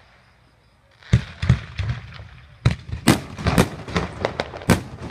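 Fireworks going off: after about a second of quiet, an irregular rapid string of sharp bangs and crackles.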